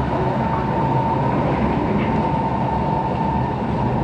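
Kawasaki-built SMRT C151 metro train running at speed, heard from inside the car by the doors: a steady rumble of wheels on track with a steady high whine held over it.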